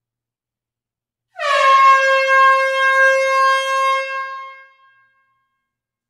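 A single air horn blast, sounded in an enclosed hall: it starts about a second in with a slight downward dip in pitch, holds one steady tone for about three seconds, then trails off.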